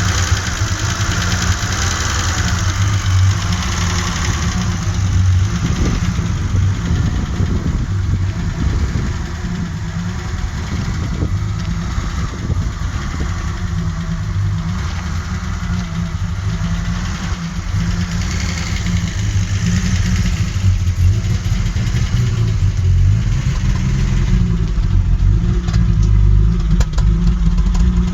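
BMW M30 2.8-litre straight-six in an Alpina B6 running with a persistent misfire, its low rumble steady in level.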